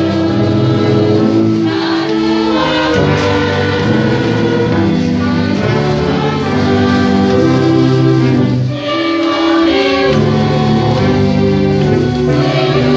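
A congregation singing a hymn together with a church orchestra, in long held chords, with a short break between phrases about nine seconds in.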